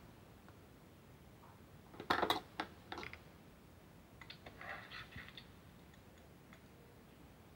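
Scattered clicks of keys being pressed on a small tablet keyboard: a quick cluster about two seconds in, a couple of single taps near three seconds, then a softer run of taps around four to five seconds, quiet in between.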